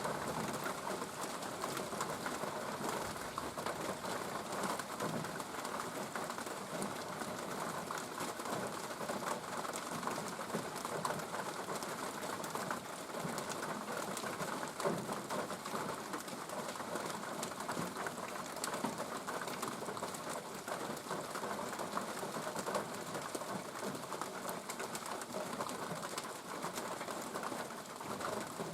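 Steady rain falling, a continuous hiss of drops dense with small ticks of close drops hitting a surface.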